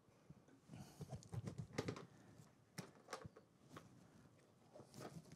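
Faint handling noises on a desk: a scatter of small taps, clicks and rustles as craft materials are moved about, busiest between one and three and a half seconds in.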